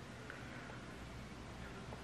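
Faint steady hiss of room tone with a low hum and a couple of faint soft ticks.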